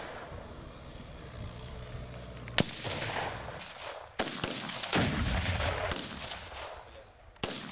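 Several sharp bangs of weapons fire, the loudest about five seconds in with a long trailing rumble: a shoulder-fired RPG-type rocket launcher being fired.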